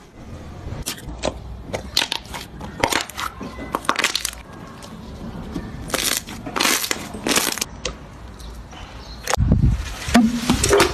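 Slime being squeezed and poked, with many sharp crackling crunches in quick succession and a louder low sound about nine and a half seconds in.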